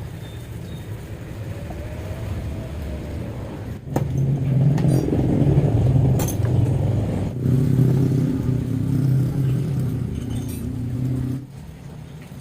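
Honda Scoopy scooter engine revved up twice, first about four seconds in and again a few seconds later, then dropping back to idle shortly before the end.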